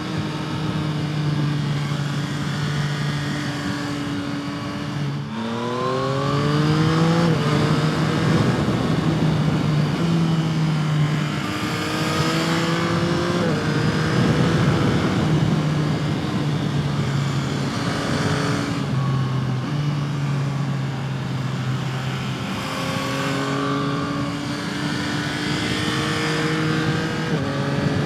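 Yamaha MT-09's 890 cc inline three-cylinder engine under way, holding steady revs for stretches and then climbing sharply as it is opened up, about five seconds in and again near the middle and the end. Wind rush runs underneath.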